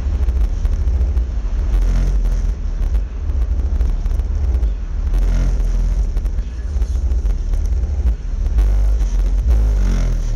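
Deep bass from two 12-inch Kicker Comp subwoofers playing loud in a 2008 Mitsubishi Lancer, heard from outside at the trunk. It comes across as a heavy, shifting low rumble with little heard above it.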